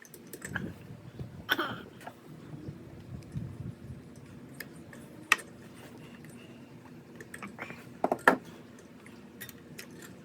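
Light clicks and taps of small metal parts being handled as a pressure washer engine's carburetor and linkage are fitted back on, with a sharp click about five seconds in and a quick cluster of clicks near eight seconds.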